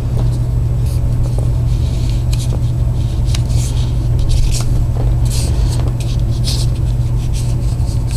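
A steady low hum throughout, with short light rustles and scrapes of handling every second or so.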